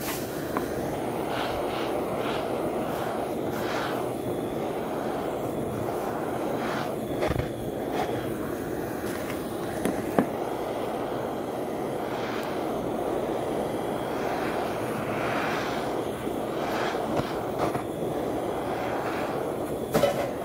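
Handheld butane torch flame running steadily as it scorches pine log slices. A few light knocks come about a third and halfway through and again near the end.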